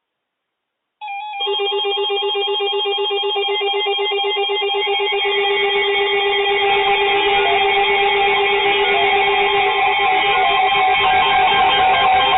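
Several NOAA weather radio receivers sounding their electronic warning alarms at once: a loud, dense chord of overlapping beeps and alternating two-pitch tones that starts abruptly about a second in and keeps going. It is the alarm for an incoming severe thunderstorm warning.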